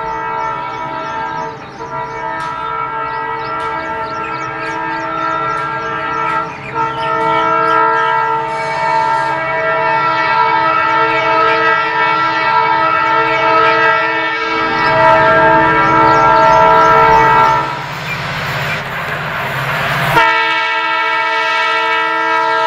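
WDP4 diesel locomotive's multi-tone air horn sounding one long continuous blast as the train approaches. It stops about 18 seconds in, giving way to a couple of seconds of the train's engine and wheel noise, then a second blast starts near the end.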